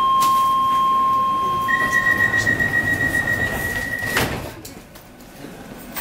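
DLR B07-stock door-closing warning: a steady tone, then a higher steady tone that overlaps it briefly, together about four seconds long. It ends in a thud as the sliding doors shut.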